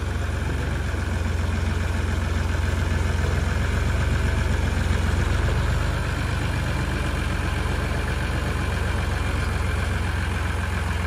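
Massey Ferguson 135 tractor engine running steadily at low revs as the tractor is driven slowly up the ramps onto a trailer, with a deep, even low rumble.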